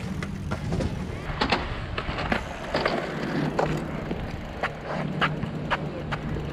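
Mountain bikes rolling on concrete skate-park ramps: a steady low tyre rumble with scattered sharp clicks and knocks from the bikes.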